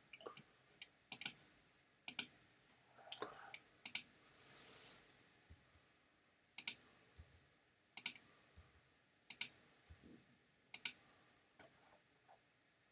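Computer mouse clicking, mostly in quick double clicks about every second or so, with a short hissing swish about four and a half seconds in.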